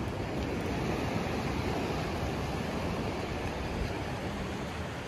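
Sea surf washing up the beach: a steady, unbroken rush of wave noise.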